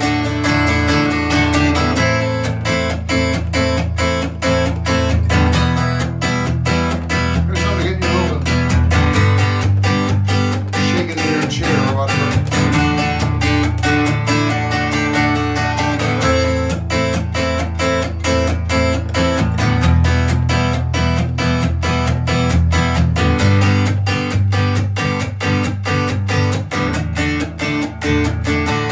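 Acoustic guitar strummed in a steady, even rhythm, with no singing.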